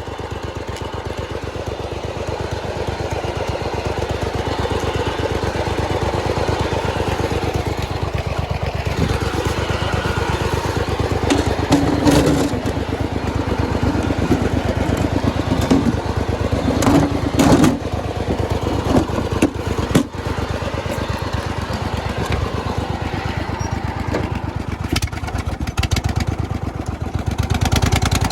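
Turbocharged V-twin lawnmower engine running steadily, with a couple of brief louder bursts in the middle.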